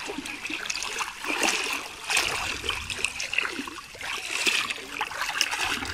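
Shallow river water splashing and trickling as a wading man moves through it and lifts a dripping mesh fishing net out of the water; irregular splashes come and go.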